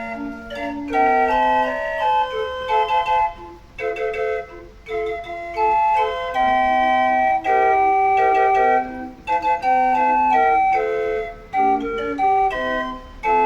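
Barrel organ playing a melody in sustained, reedy-sounding notes, with short breaks between phrases.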